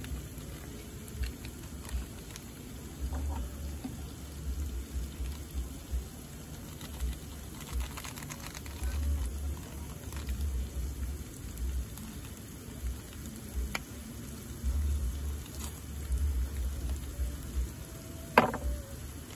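Rain pattering steadily, with intermittent low rumbling and scattered light ticks, and a sharp click near the end.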